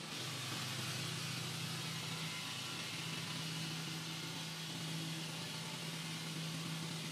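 Large segmented circular saw blade of a stone block cutter slicing through a rough stone block under a water spray: a steady motor hum under a continuous hiss of cutting and running water.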